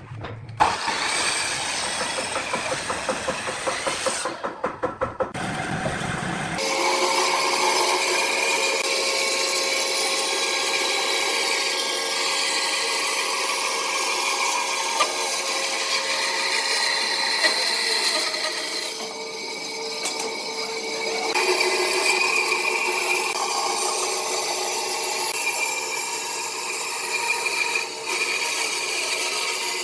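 Woodworking power tools running and cutting wood. A rhythmic working sound for the first six seconds gives way to a steadier machine whine, which shifts several times later on.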